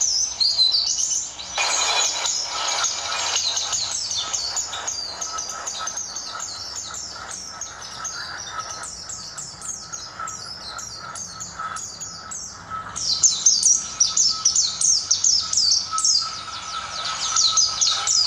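Caged white-eye (pleci dabu) singing hard: a rapid, unbroken twitter of high chirps. It is softer through the middle and loud again from about thirteen seconds in.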